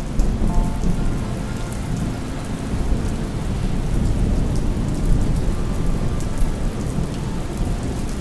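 Steady rain with a continuous low rumble of thunder, and scattered drop ticks on top.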